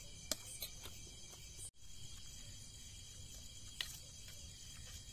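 A metal spoon clinks sharply against a steel plate three times, twice close together near the start and once near the end. Under it runs a steady high chirring of night insects.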